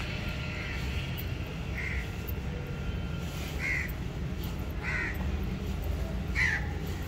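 A bird calling: five short calls about a second and a half apart, each dropping slightly in pitch, the last one the loudest, over a steady low rumble.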